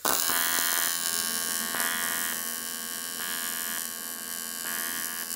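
AC TIG welding arc on an aluminium cylinder head, running pulsed at about 135 amps: it strikes abruptly and runs as a steady electric buzz that swells and eases in regular pulses.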